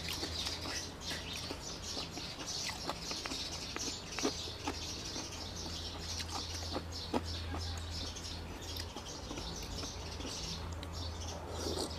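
Many small birds chirping continuously in the background, with scattered light clicks and a low steady hum underneath.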